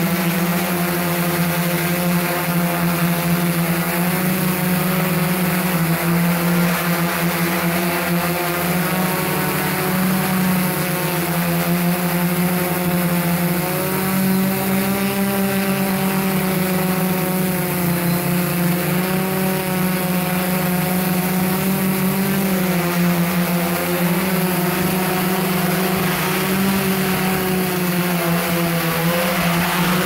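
Y6 multirotor drone's electric motors and propellers running in flight, heard from on board: a steady whine whose pitch wavers slightly up and down as the throttle changes.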